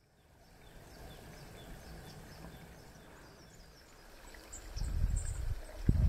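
Running stream fading in, with faint high chirps of small birds scattered through it. A low rumble grows much louder about three-quarters of the way through.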